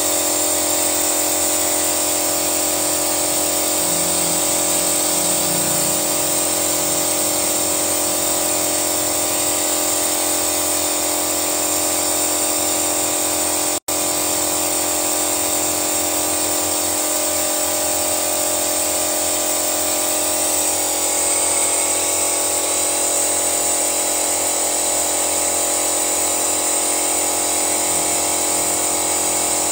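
Steady mechanical whine with a constant high hiss from the compressed-air engine-flush rig feeding cleaning fluid into a Toyota Yaris engine. The sound cuts out for an instant about 14 seconds in.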